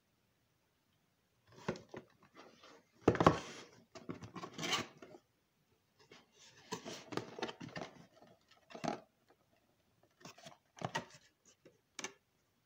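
A cardboard box and a paper parts leaflet being handled and opened: irregular scrapes, rustles and light knocks of card on a wooden table, the loudest about three seconds in.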